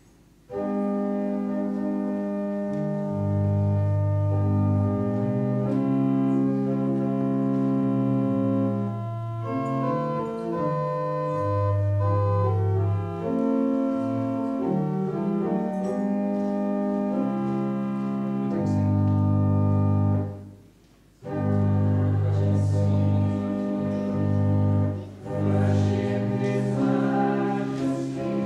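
Church organ playing slow, held chords, breaking off briefly about twenty seconds in before carrying on. It is offertory music played while the altar is prepared for Mass.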